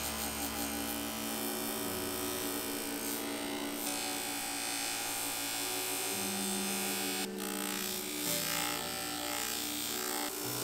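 Bench buffing motor running steadily with a rough nonwoven abrasive cleaning wheel, an aluminium Suzuki RM250 rear brake pedal pressed against it to blend out scrapes and gouges. It gives a constant motor hum under a hissing scrub of abrasive on metal, with a brief drop about seven seconds in.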